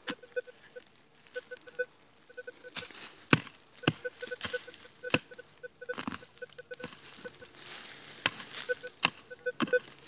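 Rutus Alter 71 metal detector beeping in runs of short, evenly spaced pips that stop and start as it sweeps over a target. Irregular sharp strikes of a hand tool chopping into stony soil come through the beeping.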